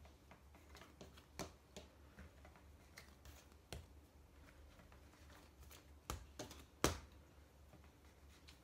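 A plastic dough scraper cutting through bread dough and knocking on the countertop as dough pieces are set down: faint scattered taps, with two louder knocks past the middle.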